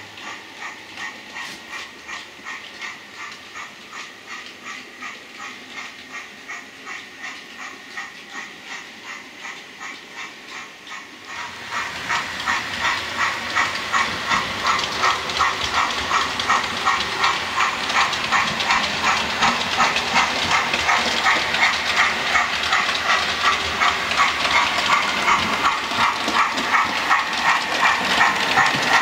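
Model railway steam locomotive running with a steady, rhythmic chuffing, quieter at first and stepping up in loudness about twelve seconds in.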